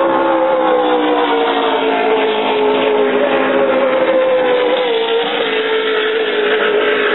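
Offshore racing powerboat engines running hard at speed: a loud, steady engine note that slowly falls in pitch as the boats run past.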